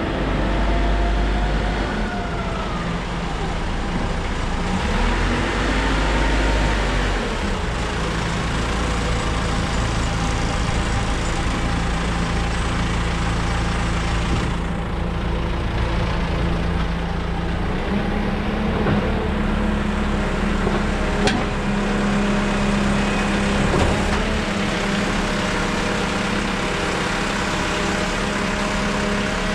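JCB 4CX backhoe loader's diesel engine running, its note shifting several times as the machine is worked, with a sharp click about 21 seconds in and another about 24 seconds in.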